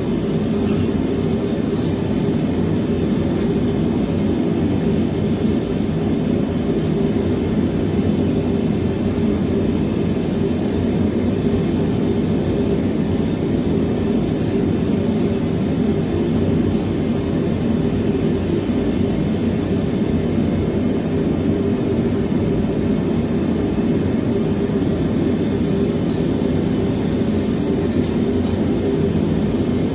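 Gas-fired melting furnace burner running with a steady, unbroken roar, heating crucibles to red heat.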